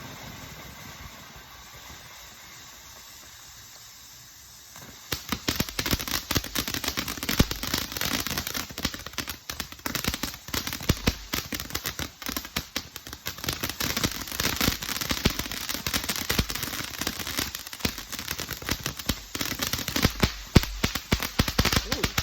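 Bright Star Pot Mums 200-gram fountain firework going off: about five seconds in it bursts into dense crackling and a rapid, continuous string of loud bangs, and these keep up to the end.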